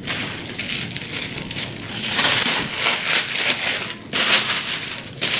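Tissue paper crinkling and rustling as hands unwrap a book from it, with a short pause about four seconds in.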